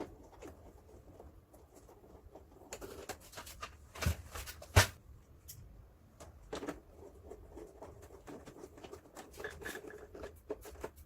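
Light clicks, scrapes and rustles of hands working on a split air conditioner indoor unit's plastic casing while its last screws are put back, with two sharper knocks about four and five seconds in.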